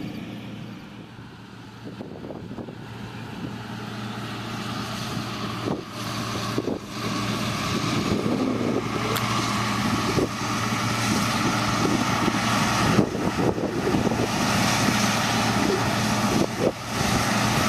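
Combine harvester running in a soybean field: a steady engine hum under the rushing noise of the machine at work, growing steadily louder through the stretch.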